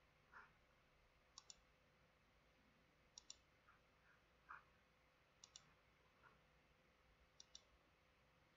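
Faint computer mouse clicks: four pairs of sharp clicks spaced about two seconds apart, with a few softer taps in between.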